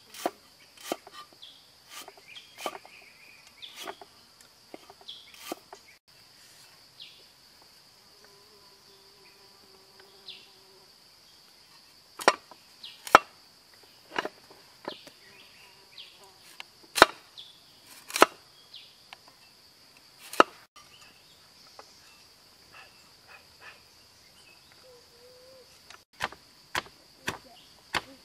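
Knife chopping on a wooden cutting board in sharp, irregular knocks, a few of them loud. Near the end, a stone pestle pounds in a stone mortar at about two strokes a second. A steady high-pitched insect drone runs underneath.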